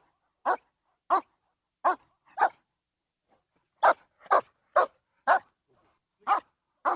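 A dog barking in single short, sharp barks, about ten of them at roughly half-second to one-second intervals, with a short pause partway through.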